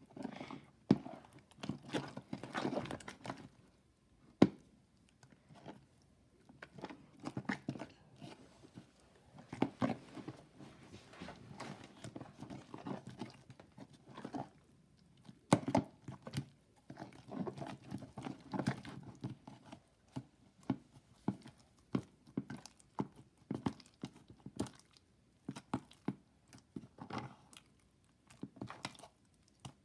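Lumpy slime being mixed and kneaded by hand, with irregular wet squishing, sticky clicks and small pops coming in clusters.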